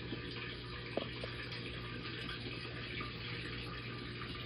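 Steady rushing background noise with a low hum underneath and a faint click about a second in.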